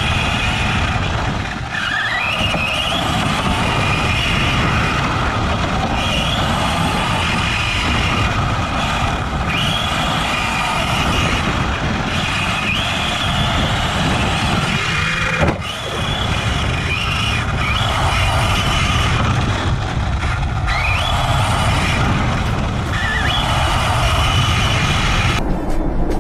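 Arrma Mojave RC desert truck's electric motor whining, its pitch rising again and again as the throttle is opened, over a steady rumble and rattle of the chassis and tyres over bumpy grass, heard from a camera riding on the truck. The sound changes abruptly near the end.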